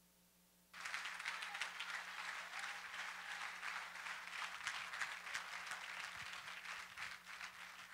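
Congregation applauding, starting suddenly about a second in and thinning out near the end.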